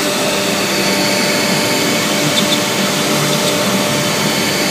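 Redsail 1325 CNC router with a 3 kW spindle cutting a pattern into a panel, together with the dust extraction drawing air through its hose and brush shroud. The noise is steady throughout.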